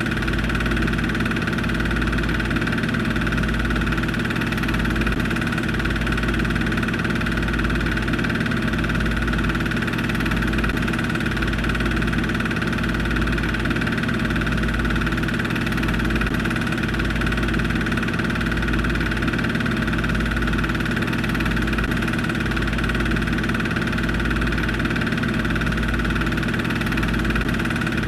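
Motor-driven film projector running steadily: a constant mechanical whir and hum with a low, uneven pulsing throb underneath.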